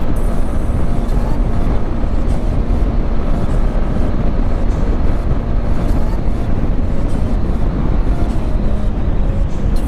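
Yamaha MT-15's 155 cc single-cylinder engine running steadily at cruising speed, under a constant low rush of riding wind on the microphone.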